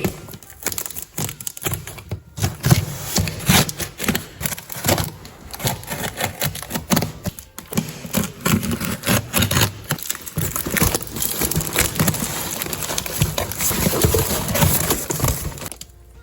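Packaging crinkling and crackling as a parcel is unwrapped by hand, with a dense run of irregular rustles and sharper snaps.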